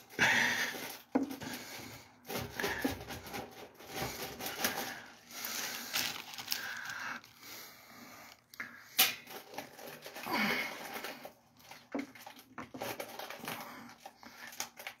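Irregular breathy puffs and rustling close to the microphone, with a few sharp clicks, the sharpest about nine seconds in: breathing and handling noise from the person holding the camera.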